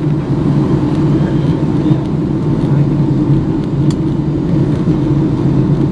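Steady cabin noise inside a Boeing 757-200 in flight: a low, even roar of the engines and the airflow past the fuselage, with one faint click about four seconds in.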